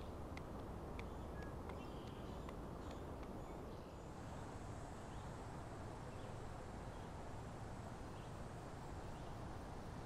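Faint outdoor background noise, with a few light clicks in the first three seconds from a blue sheep lamb's hooves on loose stones. From about four seconds in, a faint thin high tone joins the steady background.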